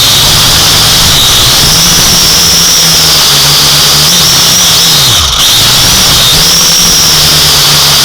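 Drone motors and propellers whining loud and steady, the pitch drifting up and down with the throttle; about five seconds in the pitch drops sharply for a moment, then climbs back.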